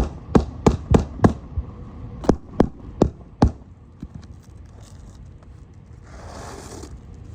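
Sharp hammer blows, about three a second at first, then four more spaced further apart, as roofing nails under the shingles are worked loose; a brief rush of noise follows near the end.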